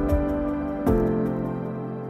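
Background music: a slow, gentle instrumental with held chords and a few soft low beats, changing to a last chord about a second in that then begins to fade out.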